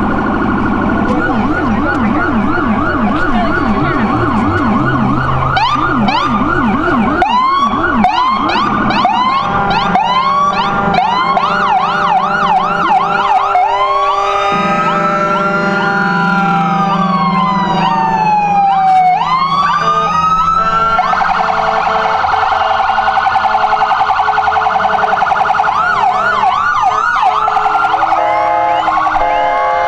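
Several emergency-vehicle sirens sounding together as a procession passes. Fast repeated yelping sweeps give way to a slow rising and falling wail around the middle, then a rapid warble. A steady blaring tone comes in near the end.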